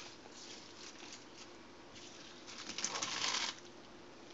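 Rustling and crackling of chopped raw greens and cabbage leaves being handled and pushed into a pressure cooker pot, faint at first and loudest in a burst about three seconds in.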